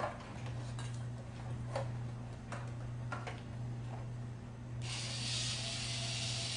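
A series of small sharp clicks and taps, about seven in four seconds, as plastic toy parts and a drill are handled. About five seconds in, a steady hiss starts suddenly and carries on.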